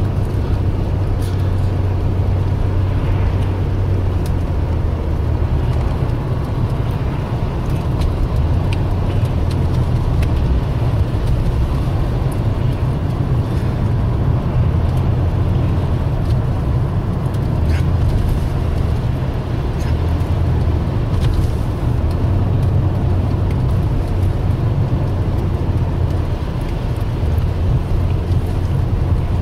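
A car driving along, heard from inside the cabin: a steady low rumble of engine and road noise, with a few faint clicks.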